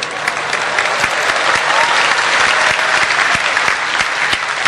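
Live audience applauding: many hands clapping at once in a dense, steady patter.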